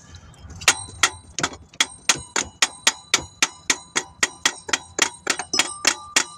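A hammer tapping repeatedly, metal on metal, on a new alternator to drive it into its mounting bracket. The taps start about a second in and come about four a second, each ringing briefly.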